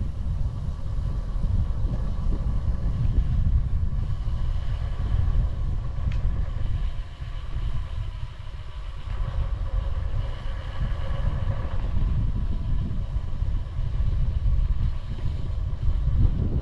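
Wind buffeting the microphone of a camera on a moving bicycle: a dense, gusty low rumble that eases briefly about seven seconds in.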